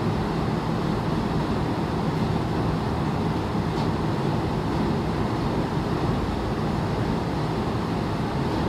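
Steady rainy-day noise: an even, unbroken rush, heaviest in the low range.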